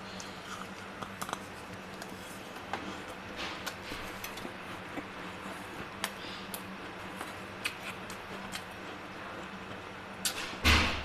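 Metal spoon scraping and scooping soft frost ice in a freezer compartment: scattered small scratchy clicks and scrapes over a steady low hum, with one louder crunch near the end.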